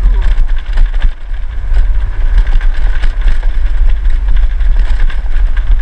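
Motor scooter riding over a bumpy gravel road: a loud, steady low rumble with a faint high engine whine and scattered knocks from the bumps.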